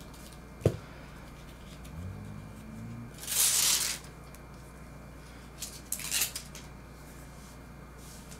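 Handling noises from working with tent fabric and a Velcro strip: a sharp click under a second in, a loud rasping rustle lasting under a second a little past three seconds in, and a few shorter rustles around six seconds.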